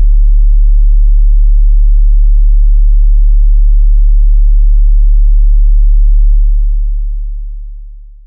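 A loud, deep bass drone holds steady while its fainter higher ringing dies away, then it fades out over the last two seconds.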